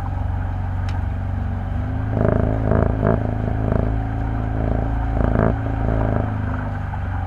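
Motorboat engine running steadily with a low hum, with several short louder surges in the middle.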